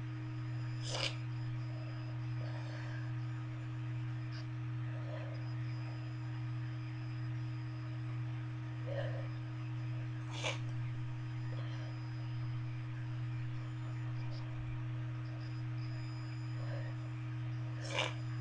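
Steady low background hum, its loudness wavering slowly and evenly, with a couple of faint short noises, one about ten seconds in and one near the end.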